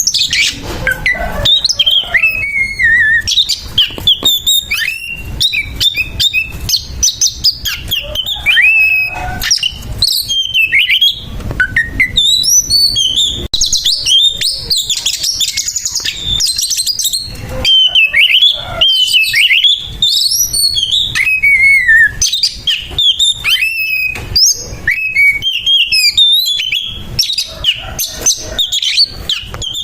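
Oriental magpie-robin giving its harsh fighting song: a loud, rapid stream of varied whistles, slurs and sharp clicking chatter with no pauses.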